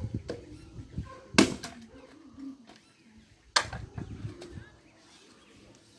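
Two hard chopping blows into dry firewood, about two seconds apart, splitting a log for kindling.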